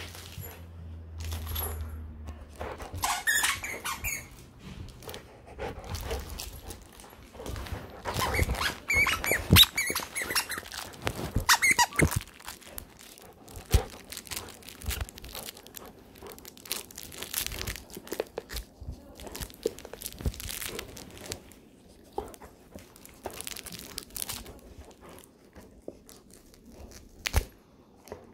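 A plush mallard duck squeaky dog toy squeaking as a pitbull mix puppy bites and chews it. There are bursts of squeaks a few seconds in and a louder run of them in the middle. Between and after them come softer chewing clicks and the rustle of the plush.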